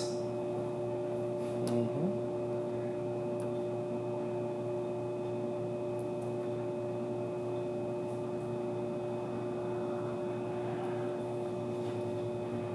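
Steady electrical or ventilation hum in a room, with two steady tones over a low hiss; a brief faint sound about two seconds in.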